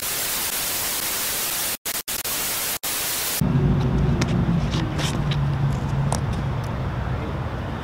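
TV static hiss, a white-noise sound effect, cutting out briefly a few times and stopping about three and a half seconds in. It gives way to a quieter low, steady outdoor rumble.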